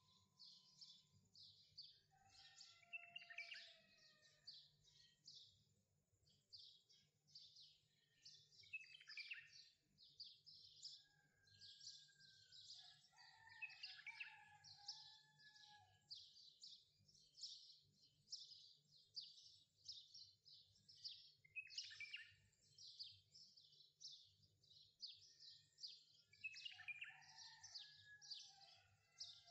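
Faint birdsong: many small birds chirping and twittering in quick, closely packed high notes, with a few lower whistled phrases now and then.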